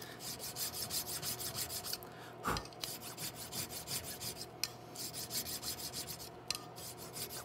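Three-cornered safe-edge file cutting steel in quick, even strokes, opening up an undersized dovetail in a rifle barrel so an underlug will fit, with a couple of brief pauses.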